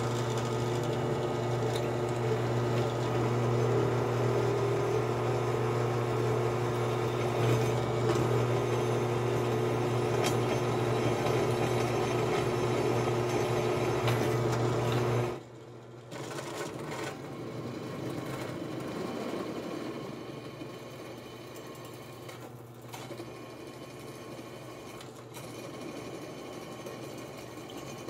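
Benchtop drill press motor running steadily as the bit drills into an aluminum plate. About halfway through the sound drops suddenly and then carries on quieter.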